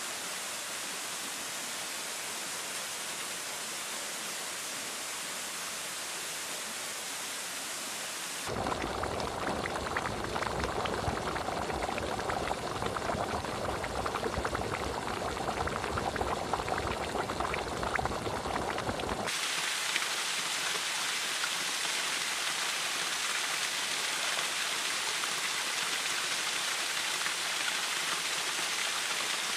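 Thermal spring water running over rock, first as a steady hiss. About eight seconds in it cuts to a louder, closer splashing trickle full of small drips, and about eleven seconds later back to a steady rush of falling water.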